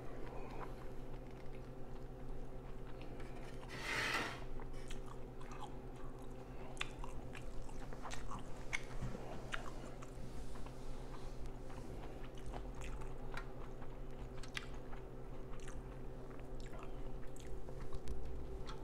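Close-miked chewing with the mouth closed, with many small wet clicks spread through, over a steady low hum. One louder rushing noise about four seconds in.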